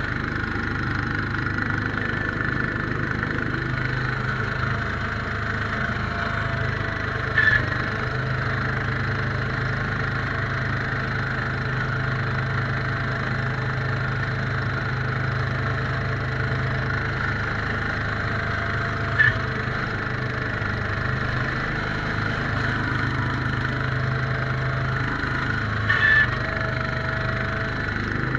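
Case 442 garden tractor's engine and snowblower running steadily under load, heard from inside the cab, with three brief sharp knocks about 7 seconds in, around 19 seconds in and near the end.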